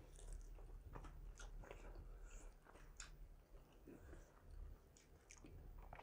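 Faint, scattered wet clicks and smacks of eating by hand: chewing, and fingers working rice and chicken curry on a metal plate.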